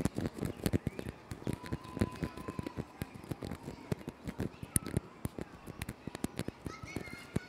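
Fingertips and nails tapping and scratching on tree bark, close-miked at the trunk: a quick, irregular run of small dry taps, several a second. A faint bird call sounds behind them.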